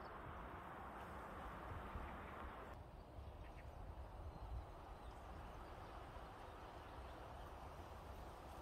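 Faint outdoor background noise: a fluctuating low rumble under a steady hiss, with a few faint, short, high-pitched sounds. The hiss drops abruptly about three seconds in.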